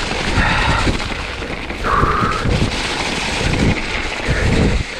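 Mountain bike moving over a rough, wet, snowy trail: heavy rumbling, wind buffeting and irregular knocks on the microphone, with a brief squeal about two seconds in.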